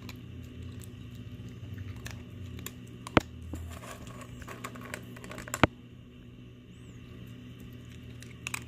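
Small dog eating dry kibble from a hand, with small crunches and light ticks, and two sharp clicks, about three and five and a half seconds in.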